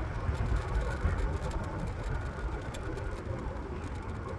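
Wind buffeting the microphone and tyre rumble on asphalt from a moving electric scooter, a steady low rumble with a few faint ticks.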